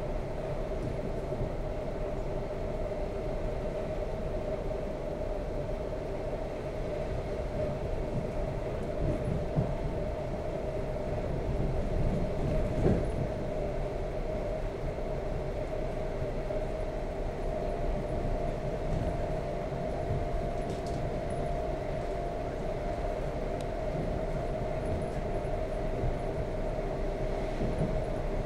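ED4M electric multiple unit running at steady speed, heard from inside a passenger car: a continuous low rumble of the train on the track with a steady whine over it, and a couple of louder knocks near the middle.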